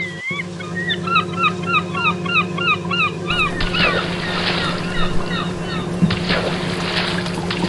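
A quick series of honking bird calls, about two a second, over a steady low hum. About three and a half seconds in, the calls stop and irregular hissing, splash-like bursts take over.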